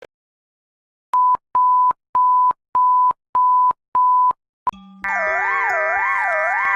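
Emergency alert broadcast tones: six short, evenly spaced high beeps, then a loud alarm tone begins about five seconds in. The alarm tone is several steady tones held together, with a warbling tone rising and falling a little under twice a second.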